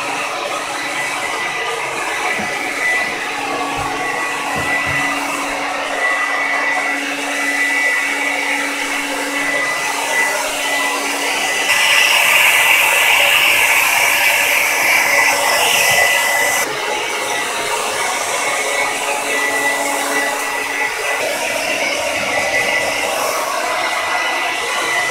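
Handheld hair dryer blowing steadily on a dog's coat, with a thin steady whine over the rush of air. Around the middle it grows louder and hissier for about five seconds, then drops back suddenly.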